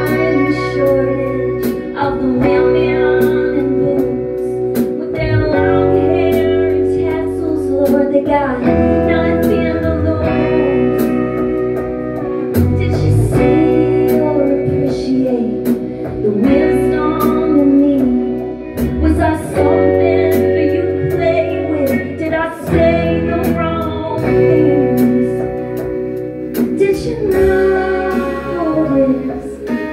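Live band playing a song: electric guitar and keyboard over low bass notes, with a woman singing.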